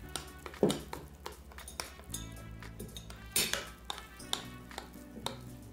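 A metal spoon stirring a thick batter in a glass bowl, clinking against the glass many times, sharply about half a second in and again just past three seconds. Background music plays throughout.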